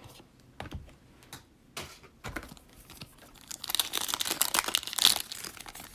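Handling of Prizm football trading cards and their plastic cello pack: scattered light clicks of cards being shuffled, then a dense crinkling of plastic wrapper from about three and a half seconds in.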